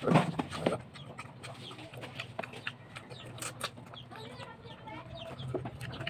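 Chickens clucking in short, broken calls, with two loud knocks near the start over a steady low hum.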